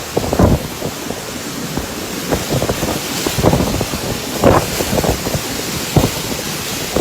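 Storm wind blowing in strong gusts and buffeting the microphone: irregular low thumps over a steady hiss.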